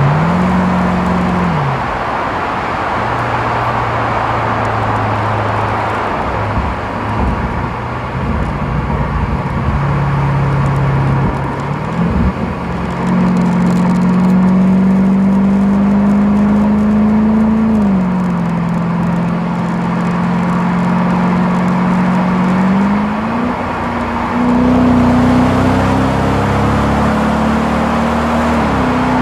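Audi B7 S4's 4.2-litre V8 through a Milltek exhaust with resonator, heard at the back of the car, pulling through the gears at low revs. The exhaust note rises with the revs and falls back at each shift, climbing higher for the last few seconds.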